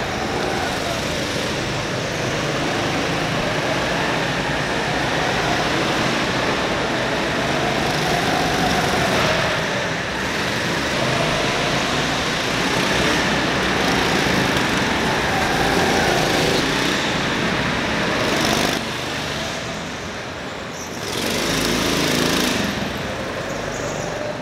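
Small petrol go-kart engines running as several karts lap the track, the engine pitch rising and falling as they accelerate and pass. The noise drops for a moment about 19 seconds in, then picks up again.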